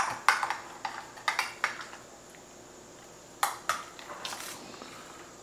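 Metal kitchen tongs clicking and clinking against a glass baking dish as they work a brisket: a quick run of sharp clicks in the first couple of seconds, a pause, then a few more about three and a half seconds in.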